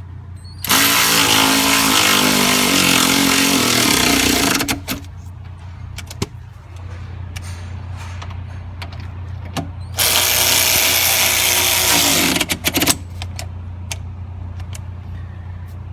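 12-volt cordless electric ratchet wrench running twice, a few seconds each time, with a whining motor as it drives seat bolts back in. The second run ends in a few short trigger blips. A steady low hum runs underneath.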